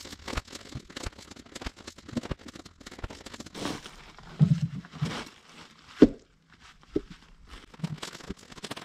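Boots crunching on gravel and firewood rounds knocking together as they are lifted from a tractor's loader bucket and set on a stack, with one louder wooden thud about six seconds in.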